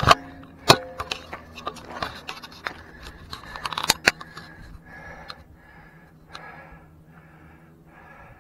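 Sharp clicks and knocks of a trail runner's worn camera and trekking poles being jostled and handled, then the runner moving on in a steady rhythm of soft bursts, about two a second.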